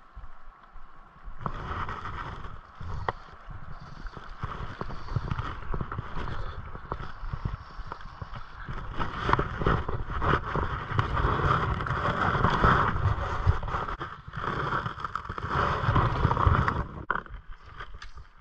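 Shallow rocky trout stream running and gurgling close to the microphone, with wind buffeting the microphone; the water noise drops away near the end.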